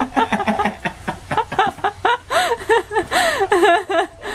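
People laughing hard, a run of loud, quick, high-pitched bursts of laughter.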